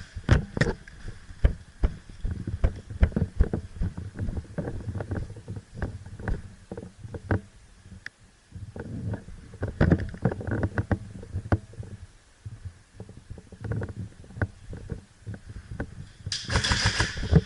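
Movement and handling noise from a player moving through an airsoft arena: irregular footsteps and knocks of gear, with a short, sharp rattling burst about a second before the end.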